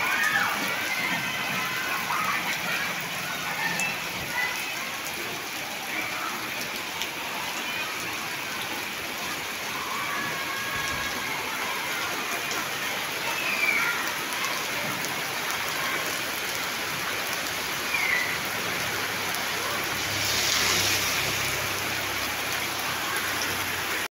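Heavy tropical rain pouring steadily, a continuous hiss of rain on roofs, paving and leaves, swelling briefly louder near the end.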